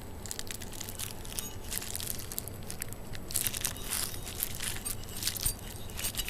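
Irregular rustling and crinkling of packaging being handled, in scattered short scratchy bursts that are busiest a little past halfway.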